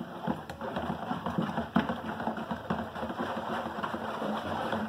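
Thick homemade liquid soap being stirred briskly with a long stick in a plastic bowl as salt brine is mixed in to thicken it: a continuous churning slosh with frequent light knocks, one sharper knock a little under two seconds in.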